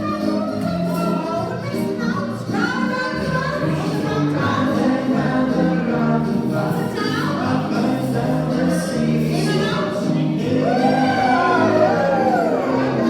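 A song sung by voices over an instrumental backing, with a sweeping pitch glide up and down near the end.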